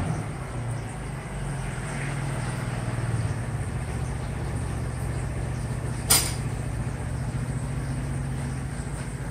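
Aquarium air pump running with a steady low buzzing hum while it drives bubbling sponge filters. A single sharp click comes about six seconds in.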